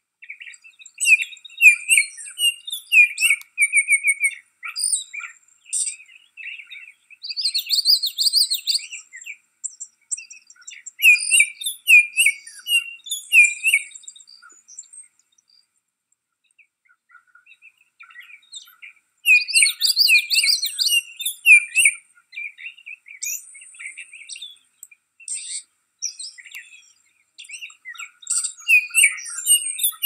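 Baltimore oriole calling: phrases of short whistled notes repeated with brief gaps, with a longer pause of a few seconds about halfway through.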